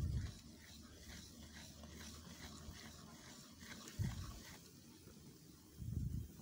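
Wooden spatula stirring semolina in hot ghee in a steel karahi: faint sizzling with soft scraping strokes about two a second, as the semolina is roasted. A few low thuds break in at the start, about four seconds in and about six seconds in.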